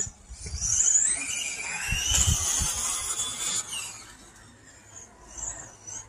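Radio-controlled on-road car running on an asphalt circuit, its high whine rising and falling in pitch as it speeds up and slows through the corners, fading after about four seconds.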